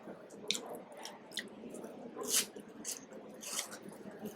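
Close-up chewing of crunchy puffed cheese curls, with irregular crisp crunches.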